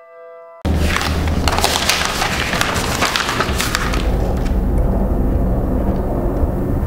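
A quiet sustained keyboard chord cuts off abruptly and is replaced by loud crackling, rustling noise over a steady deep rumble.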